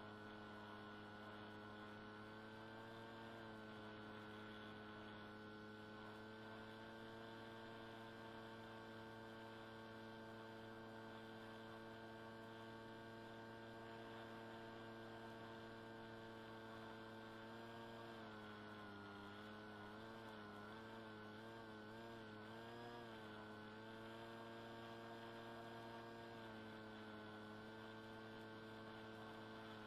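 Electric motor and propeller of an FPV flying wing under power in cruise, heard faintly through a tiny onboard microphone as a steady hum. Its pitch wavers for a few seconds past the middle, then settles again.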